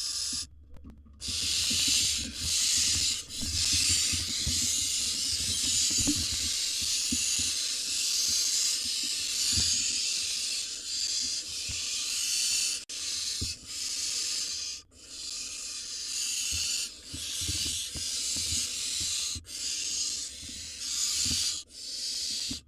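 Barn owl nestlings hissing: long, rasping hisses in stretches of a second or more, broken by short pauses, with several birds overlapping. Soft low knocks sound beneath them.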